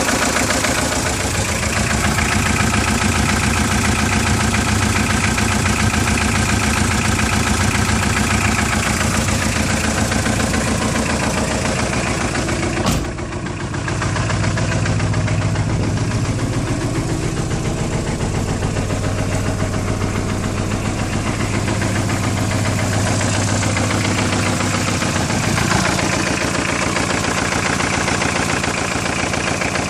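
Engine running with a fast, steady knocking that the owner cannot identify. The engine note changes pitch a few times, and there is one sharp click about thirteen seconds in.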